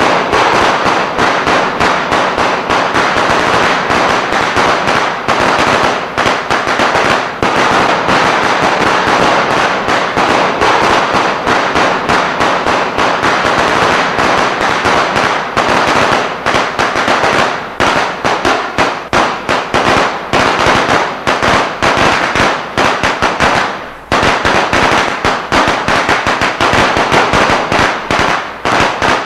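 Eco-friendly firecracker machine producing a loud, continuous rapid crackle of sharp pops like a long string of firecrackers, with a brief lull about 24 seconds in.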